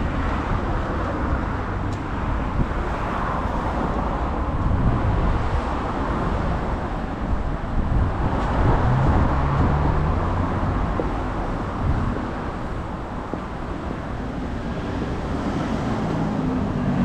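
Street traffic: cars running along the road, a steady noisy rumble that swells and eases as vehicles pass.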